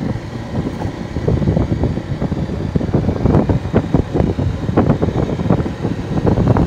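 Loud, gusty wind noise buffeting the microphone of a camera carried on a moving motorbike, mixed with the bike's running noise.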